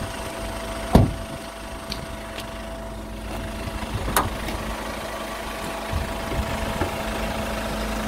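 Hyundai Grand Starex's turbocharged engine idling with a steady whistling tone over its rumble, a whistle blamed variously on the turbo, the alternator or the A/C compressor. There is a sharp knock about a second in and clicks about four seconds in as the bonnet is released and raised.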